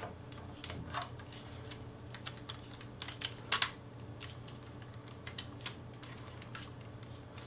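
Scattered clicks and taps of a transforming robot toy's parts being handled and worked to seat a peg, the loudest about three and a half seconds in, over a faint steady hum.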